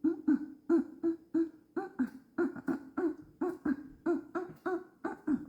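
A woman's voice chanting a long run of short sing-song syllables, "do-do-do", about three a second, in playful baby talk.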